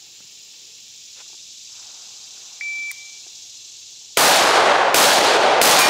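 Shot-timer start beep, then three rifle shots about two-thirds of a second apart. It takes three shots to hit the target at 50.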